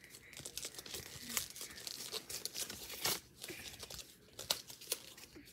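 Toy slime packaging being torn and peeled open by hand: irregular crackling and ripping of plastic and cardboard.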